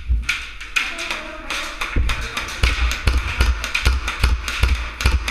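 Irregular knocks and deep thuds, about two or three a second from about two seconds in, over a steady rustling hiss.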